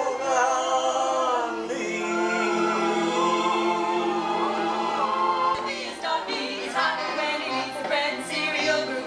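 Show music with a group of voices singing a long, held chord. About six seconds in, music with a rhythmic beat starts.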